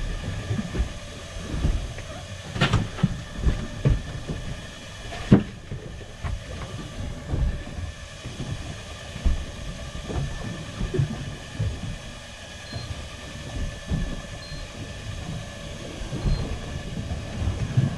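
Small fishing boat's engine running steadily, with irregular low thumps of choppy water against the hull and a sharper knock about five seconds in.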